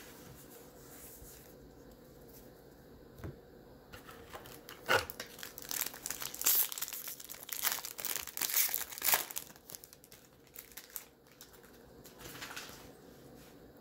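Plastic foil wrapper of a baseball card pack crinkling and tearing as it is opened. Irregular crackles start about four seconds in and come and go until near the end.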